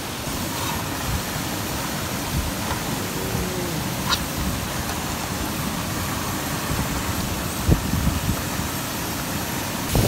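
Steady rushing of a waterfall and stream, with a couple of faint knocks.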